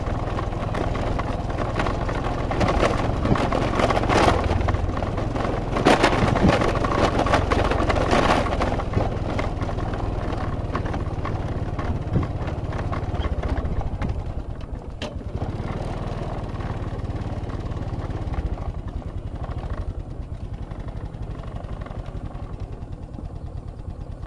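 A motor vehicle engine running steadily, louder through the first third and quieter from about fourteen seconds on.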